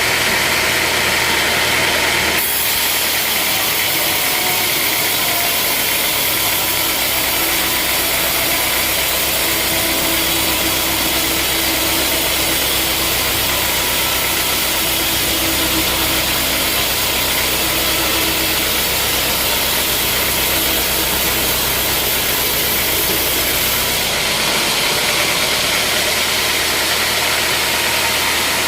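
Sawmill machinery running with a loud, steady motor noise; the high hiss strengthens about two seconds in and eases again near the end.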